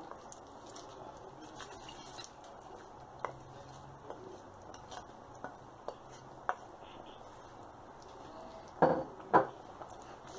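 Curry simmering in a metal pot with a faint steady hiss, with light clinks of a plate against the pot as chopped greens are tipped in. Near the end a utensil knocks loudly against the pot twice, about half a second apart.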